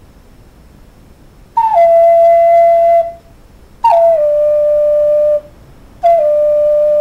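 Background music: a solo flute playing three slow, long held notes, each sliding down into its pitch, with short pauses between them, the later notes a little lower than the first.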